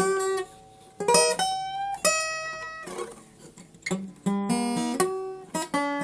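Solo guitar playing an instrumental piece: plucked notes and chords that ring and die away, in short phrases. It is quieter around the middle and the playing grows denser in the second half.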